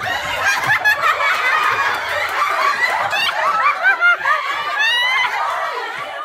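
A group of women laughing and squealing together, many high-pitched laughs overlapping, busiest about halfway through.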